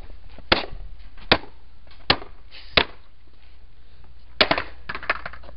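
A wooden skateboard deck is slammed tail-first onto a concrete sidewalk, again and again, to try to snap it. There are four sharp wooden smacks about three-quarters of a second apart, then a louder hit with a quick clatter of smaller knocks near the end. The deck holds.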